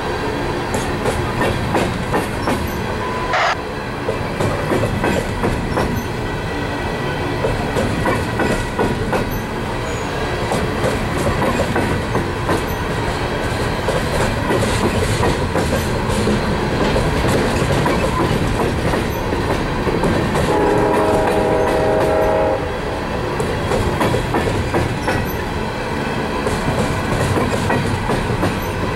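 Empty coal hopper cars rolling slowly by, a steady rumble with wheels clicking over the rail joints. About two-thirds of the way in, a pitched tone sounds for about two seconds over the rumble.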